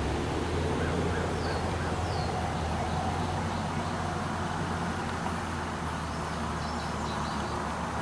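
Steady outdoor background with a low hum and a few faint, short bird calls.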